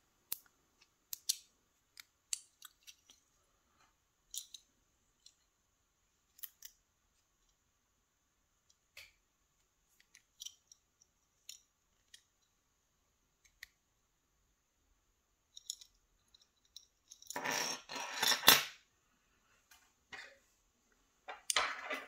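Small metal clicks and taps from a Sargent lock cylinder and a plug follower being worked through it to push the plug out. A longer rattling clatter of metal parts starts about 17 seconds in, and a shorter one comes near the end.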